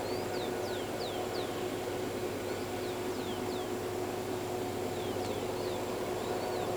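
Birds chirping in quick, falling notes over a steady droning hum, the distant diesel locomotives of a loaded freight train working hard up the grade.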